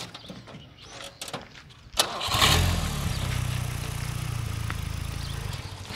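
A motor trike's engine is started about two seconds in: a sharp click, then the engine catches, briefly louder, and settles into a steady idle.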